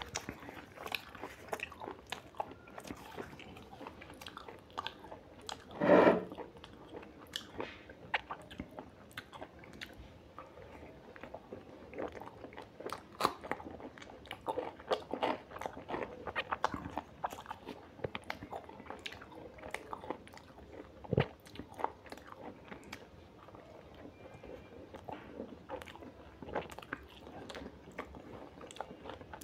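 A person eating mutton curry with roti, rice and salad: steady chewing and biting with many small irregular clicks and smacks, and one louder short sound about six seconds in.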